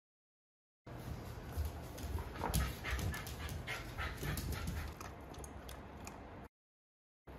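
Shiba Inu puppy whimpering, excited for its food, with a run of sharp clicks and low thumps as it hops about on its hind legs on a wooden floor. The sound starts about a second in and stops shortly before the end.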